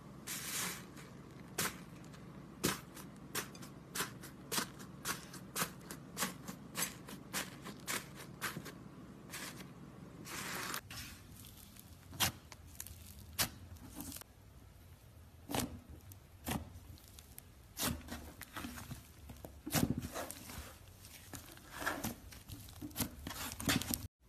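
Slime being poked, pressed and stretched by hand: a string of sharp sticky pops and clicks, about one or two a second, with a short tearing, crackling stretch about ten seconds in.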